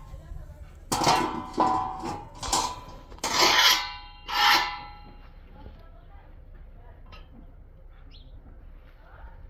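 Thin metal saj bread griddle clanging and ringing as it is set down on a cinder-block hearth and handled: about five ringing metal clangs, all within the first five seconds.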